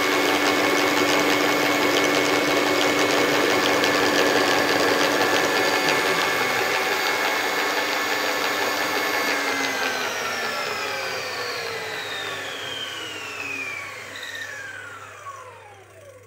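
Hoover Automix 8924 food mixer's motor running steadily, then switched off about nine or ten seconds in, its pitch falling as it spins down to a stop near the end.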